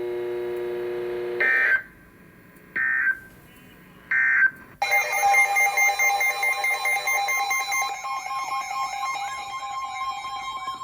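A steady buzzing tone stops about a second and a half in. Then come three short screeching bursts of Emergency Alert System (SAME) header data, a little over a second apart. These are followed by the EAS attention signal, a loud steady two-tone chord with a warbling tone running over it, which marks the start of a new weather alert.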